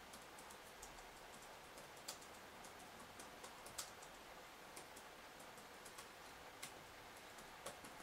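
Near silence with faint, irregular clicks, a dozen or more spread unevenly, the sharpest about two and four seconds in.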